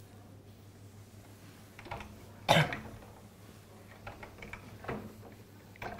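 A single loud cough about two and a half seconds in, with a few fainter rubbing sounds from a felt eraser wiping a whiteboard.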